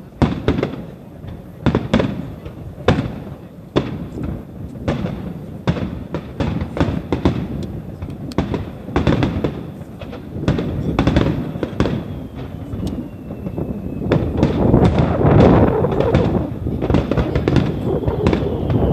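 Fireworks display: aerial shells bursting one after another with sharp bangs and crackling, growing denser and louder in the last few seconds.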